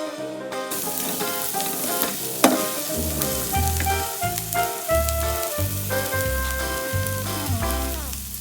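Asparagus frying in olive oil in a pan, a steady sizzle with stirring, with background music playing over it; the music stops near the end.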